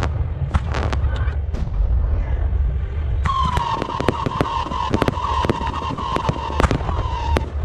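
Aerial fireworks display: repeated sharp bangs of shells launching and bursting. From about three seconds in, a steady high whistle runs as several shells climb trailing sparks, cutting off shortly before the end.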